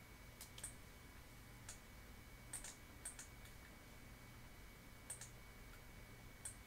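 Faint computer mouse clicks, about six, most of them quick press-and-release pairs, over a low steady electrical hum.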